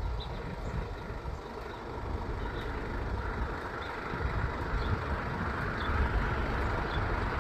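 Road traffic noise, a steady rush that grows louder toward the end, with uneven low rumble and a few faint short high chirps.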